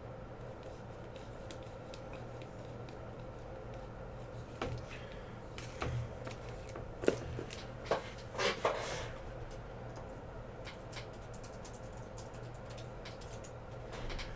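A steady low electrical hum, with a handful of short clicks and rustles around the middle.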